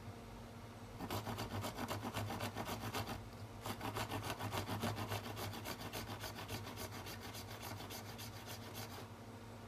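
A fine saw blade in a pin-vise handle sawing back and forth into a small white plastic whistle part, quick rasping strokes. The strokes start about a second in, pause briefly around three seconds, and stop near the end.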